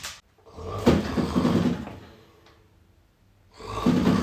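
A person snoring loudly: two long snores, one about a second in and another near the end, with a quiet breath between them.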